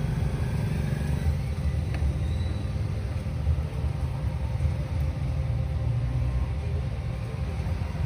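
Steady low rumble of background noise, with no speech.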